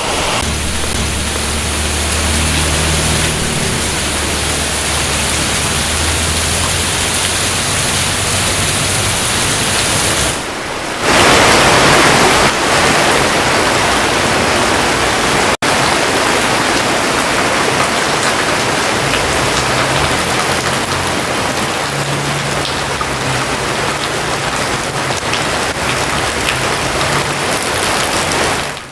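Heavy rain pouring down, a dense steady hiss with a low hum under it in places; about ten seconds in it dips briefly, then returns louder for a moment.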